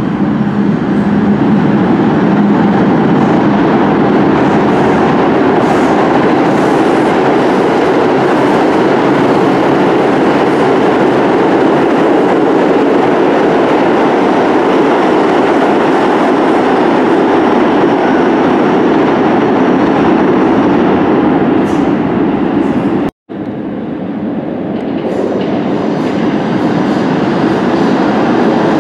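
New York City subway train running through the station, a loud steady rumble and rattle of steel wheels on rail. It cuts off abruptly about 23 seconds in, and the noise of a train builds up again.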